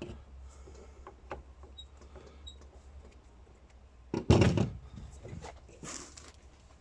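Plastic trimmer handle and trigger parts being handled and repositioned: scattered small clicks, with one louder knock about four seconds in.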